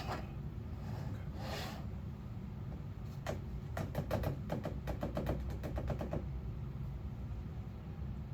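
A quick run of light, sharp clicks and taps, several a second for about three seconds, over a steady low hum.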